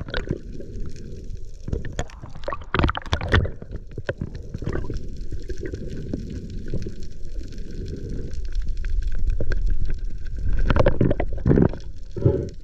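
Underwater sound through a GoPro's waterproof housing: a steady low, muffled water rumble with a few louder bubbling and knocking bursts, about three seconds in and again near the end.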